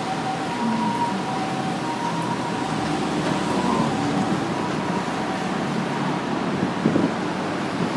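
Japanese ambulance's two-tone hi-lo siren, alternating between two pitches and fading out about halfway through, over steady city street traffic noise.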